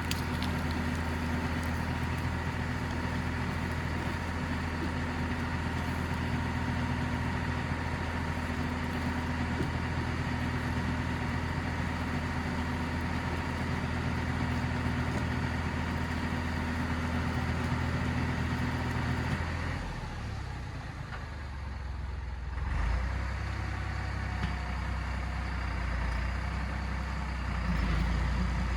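Tractor engine running steadily while dragging logs. About 20 seconds in, it drops to a lower, quieter run.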